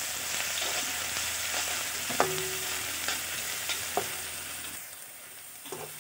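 Sliced onions and garlic sizzling in hot mustard oil in an iron kadai, stirred with a slotted spoon that knocks against the pan a few times; one knock, a little after two seconds in, rings briefly. The sizzle dies down about five seconds in.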